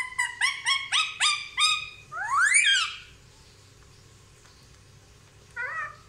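Indian ringneck parakeet calling: a quick run of short, sharp rising notes, about four a second, then one longer call that rises and falls. After a pause, one short call near the end.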